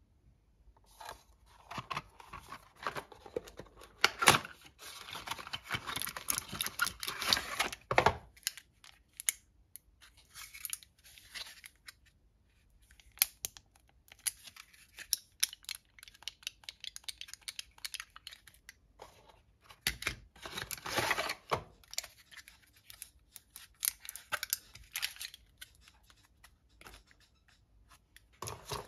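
Cardboard carton and plastic blister packs of vitamin pastilles being handled, crinkling and crackling in bursts. The crackling is busiest in the first eight seconds and again about twenty seconds in.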